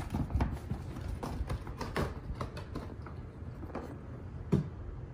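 A cat jumping onto and moving about on a hollow cardboard scratcher box: irregular taps and knocks of its paws on the cardboard, thickest in the first couple of seconds, with one louder thump near the end.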